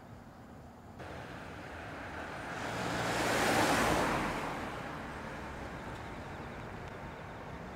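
Boeing 747-8F's four GEnx-2B turbofans at take-off thrust during the take-off roll: a steady distant jet rumble and rush that steps up about a second in, swells to a louder rushing peak about halfway through, then settles to a steady level.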